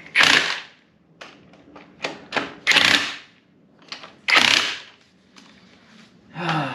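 Cordless impact wrench hammering in about half a dozen short bursts over the first five seconds as it runs lug nuts down onto a wheel's studs.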